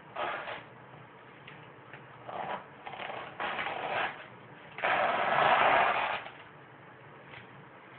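Tool strokes scraping across an oil-painting canvas: a handful of short scrubbing strokes, the longest and loudest lasting over a second about five seconds in.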